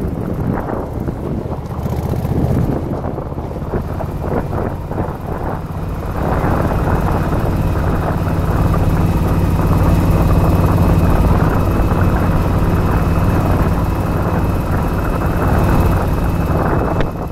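Yamaha Virago XV1100's air-cooled V-twin running on the move, with wind buffeting the microphone. About six seconds in, the engine note settles into a steady, even drone at constant speed and gets louder.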